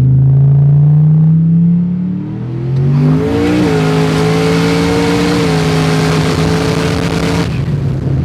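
Turbocharged 427 V8 of a 4WD Chevy Silverado revving, its pitch climbing, dipping briefly and climbing again, then holding a steady note under a loud rushing hiss from about three seconds in; the hiss stops abruptly near the end while the engine runs on.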